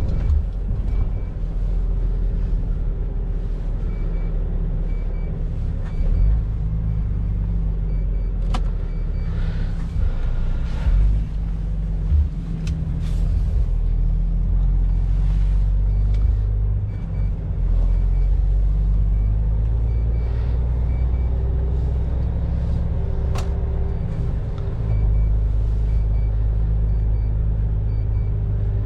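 MAN truck's diesel engine and tyre noise heard from inside the cab while cruising: a steady low drone, with a few sharp clicks or knocks.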